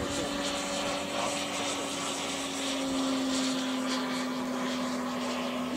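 Radio-controlled T-27 Tucano model with a JetCat turboprop flying overhead: a steady humming drone over a hiss. Its pitch dips slightly and it grows a little louder about halfway through as the plane passes.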